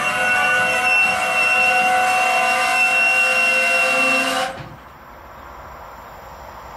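Freight train of intermodal wagons passing close by, with a sustained high-pitched ringing of several steady tones over the rolling noise. It cuts off abruptly about four and a half seconds in, leaving a much quieter hiss.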